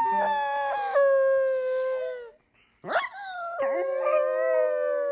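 A dog howling: two long howls, each sliding slowly down in pitch, with a short break between them about two and a half seconds in.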